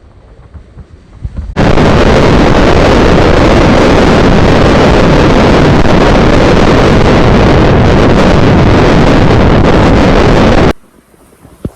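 Hurricane wind blasting a camera's microphone, a loud, overloaded roar of noise with no pitch. It starts suddenly about a second and a half in and cuts off just as suddenly near the end.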